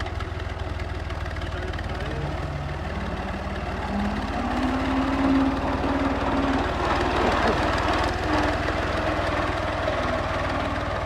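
Tractor diesel engine running, then revving up and getting louder about four seconds in as it sets off with the seed drill.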